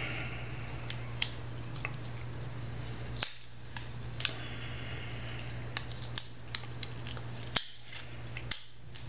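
Clear plastic tape crackling, with scattered small sharp clicks, as it is wrapped and pressed tightly around a small plastic quadcopter camera.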